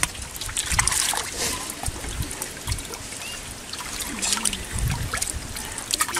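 Hands splashing and sloshing in muddy water inside a flooded hole, irregular and uneven, with a few low thumps as the arms move in the water.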